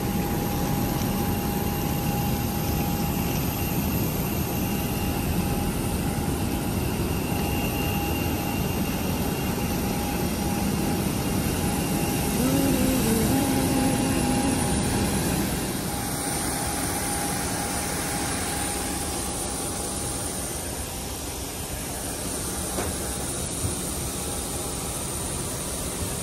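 Steady jet-turbine noise from aircraft on an airport apron: a low roar and hiss with a thin, constant high whine. A brief warbling tone rises over it about twelve seconds in, and the noise eases off about sixteen seconds in.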